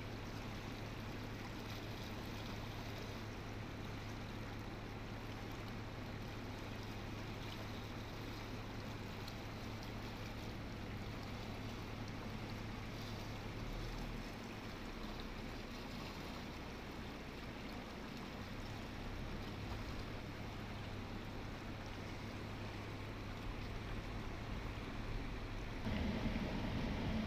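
Steady rushing of river water with a low, steady hum underneath. About 26 seconds in, the sound changes and grows louder.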